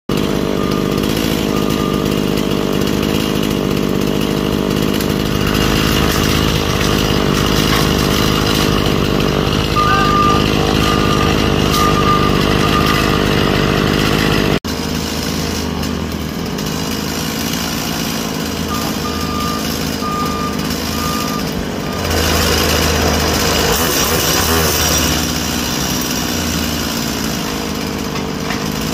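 Compact skid-steer loader's diesel engine running steadily while working in fallen timber with a grapple bucket, with two short runs of high beeps. The sound changes abruptly about halfway through, with a steadier low engine note afterwards.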